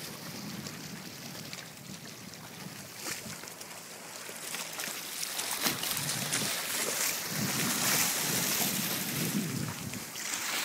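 Small waves washing and splashing against the rocky shore, with wind buffeting the microphone. The wash grows louder about halfway through.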